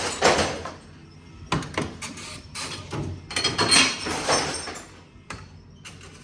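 Tomra T-53 reverse vending machine taking glass bottles: a run of separate clunks and clattering bursts as bottles are carried through and drop into the collection bin, the loudest a little after halfway. The bin sounds newly emptied.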